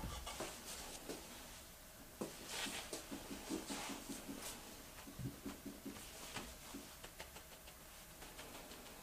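Faint rustling and soft, scattered taps of hands gathering freshly cut soba noodles on a flour-dusted wooden board and setting them in a wooden tray, with a couple of short runs of quick light ticks.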